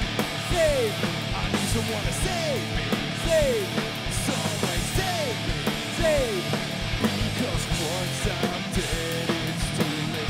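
A live rock band playing: an electric guitar strummed hard over a drum kit with crashing cymbals, in a fast punk-rock style. A falling pitch figure repeats about once a second.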